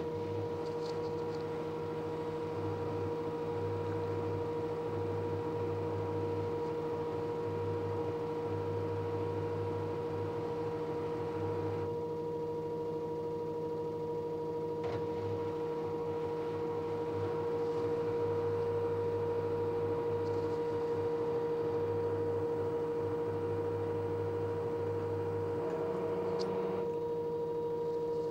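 LG F1058ND5 Direct Drive washing machine running mid-cycle with a steady whining hum, the noise that the owner suspects is coming from the pump. Under it a lower hum comes and goes every second or two.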